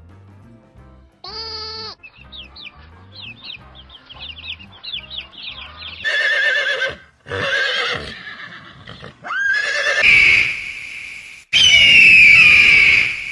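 A string of farm animal calls over background music: a bleat, a quick run of short high chirps, then several loud calls, the last two long and harsh.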